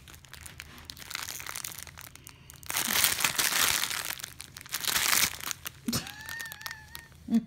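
Crinkling and rustling of a clear plastic bag of diamond-painting drill packets being handled, with many small crackles, loudest in the middle couple of seconds.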